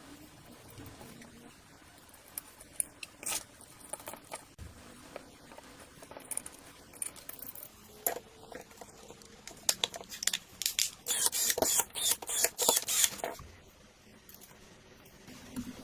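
Irregular small clicks and light knocks, thickening into a quick run of clicks and scrapes about ten to thirteen seconds in.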